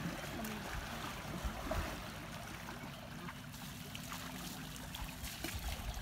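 River water splashing and sloshing as elephants wade and roll in the shallows.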